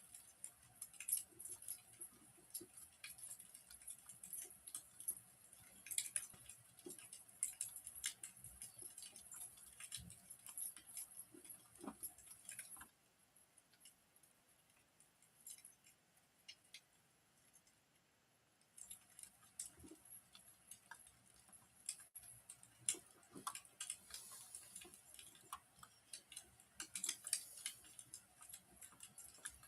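Wood fire crackling in a fireplace: faint, irregular sharp pops and snaps over a light hiss. For several seconds in the middle it thins out to a few scattered pops.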